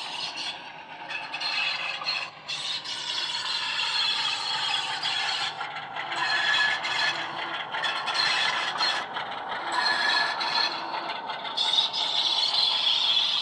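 Sound decoder playing a Class 47 diesel engine through the model locomotive's speaker, with the model's wheels clattering and scraping on the track as it rounds a curve. High-pitched flange squeal sets in near the end.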